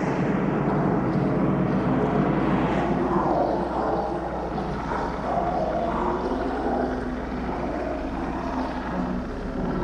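Horror sound effect: a loud, dense rumble that starts abruptly, with wavering tones drifting above it and easing off slightly in the second half.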